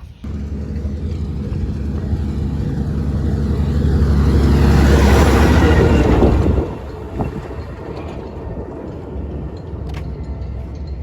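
Motor vehicle engine running steadily, with a louder rush of vehicle noise swelling to a peak about five seconds in and dropping away sharply a second and a half later.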